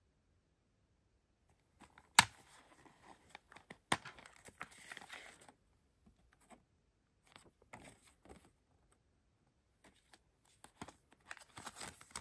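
A plastic Blu-ray case and its paper inserts being handled: a sharp plastic click about two seconds in and another nearly two seconds later, then card inserts rustling as they are slid out, with more scattered clicks and rustling near the end.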